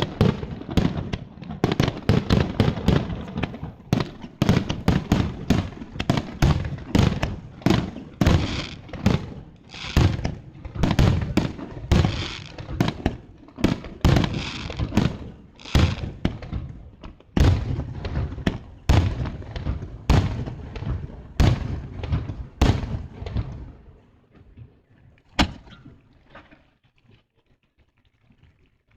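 Fireworks display: a rapid, dense barrage of aerial shell bursts, one bang after another with a low rumble between them, thinning out after about 23 seconds to a few last bangs before dying away.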